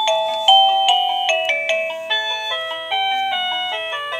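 Liztek wireless doorbell receiver playing one of its built-in electronic chime melodies: a run of bright ringing notes, two or three a second.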